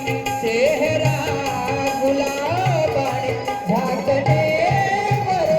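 Live Indian folk music between sung lines: a gliding melody over hand-drum strokes in a steady beat.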